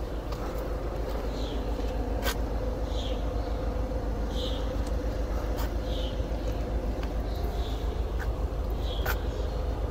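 Steady low rumble of city street traffic with a constant hum. Short high chirps come about once a second, and there are two sharp clicks, one early and one near the end.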